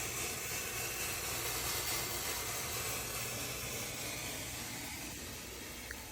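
Chevrolet Corvette C7 Z06 hissing steadily after the engine has been shut off, easing off slightly near the end, over a low steady hum.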